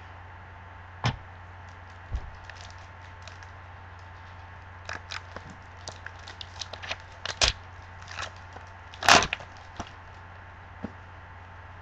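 A trading-card pack's foil wrapper being torn open and crinkled in the hands, with scattered sharp crackles and clicks. The loudest rip comes about nine seconds in, over a steady low hum.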